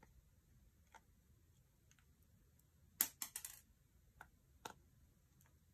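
Small sharp clicks and taps from fingers handling a BlackBerry Q10's tiny internal parts and screws: a quick cluster of clicks about three seconds in, then two single clicks.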